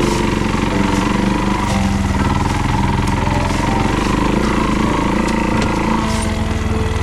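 A vehicle engine running steadily, its pitch shifting about six seconds in.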